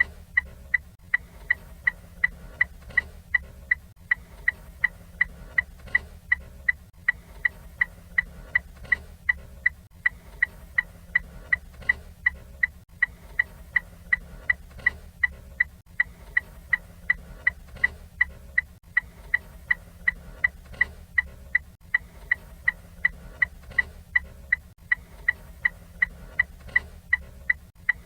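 Ford Fiesta turn-signal indicator ticking at a steady, even rate, with a low steady hum underneath.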